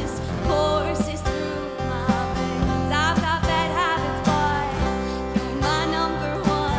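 A girl singing a pop song into an amplified microphone over instrumental backing music with a steady beat, her voice wavering in vibrato on held notes.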